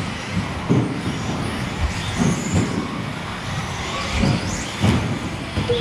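Electric 1/10-scale RC buggies with 21.5-turn brushless motors racing on an indoor carpet track: high motor whines rising and falling as the cars speed up and slow, with several sharp knocks and thuds from the cars landing and hitting the track.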